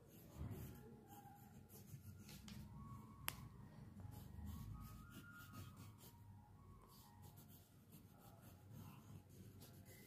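Faint pencil strokes scratching on paper, with one sharp click about three seconds in.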